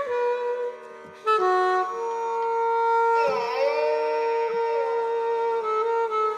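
Alto saxophone playing slow, sustained raga phrases. It breaks off briefly about a second in, and a sliding note dips and rises back a little past the middle.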